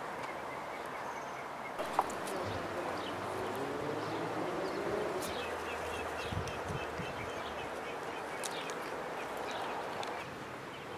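Outdoor garden ambience: a steady background hiss with faint high bird chirps and a low insect buzz wavering in pitch for a few seconds. A single sharp click comes about two seconds in.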